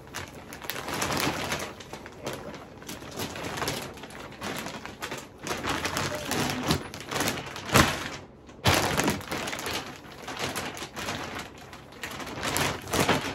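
A large plastic vacuum storage bag full of bedding crinkling and rustling as it is pressed, lifted and handled, with irregular crackles and one sharp, louder crackle about eight seconds in.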